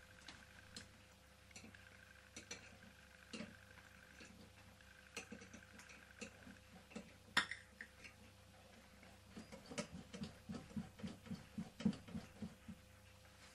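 Small metal clicks and taps from handling toy steam engines and a small oil can, then a run of soft, even ticking, about three a second, in the last few seconds.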